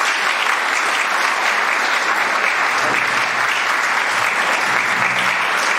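Concert audience applauding steadily: a dense, even patter of many people clapping.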